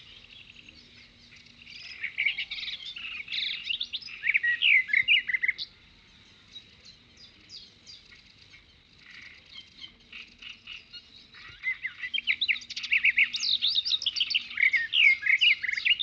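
Songbirds chirping and warbling in rapid, high trills, loudest about two to five seconds in and again from about twelve seconds on, with sparser chirps between.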